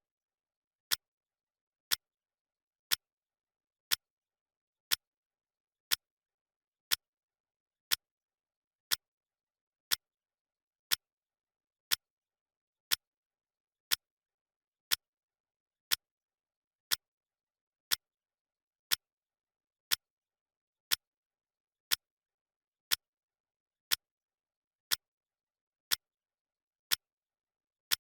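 Clock ticking sound effect: one sharp tick each second, evenly spaced, with silence between ticks.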